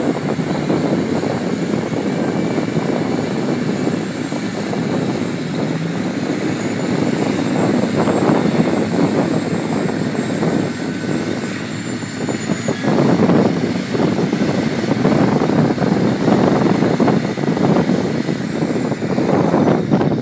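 Several Case IH Quadtrac four-tracked tractors' diesel engines running hard under heavy load, pulling through deep mud: a loud, steady drone that swells louder in the second half.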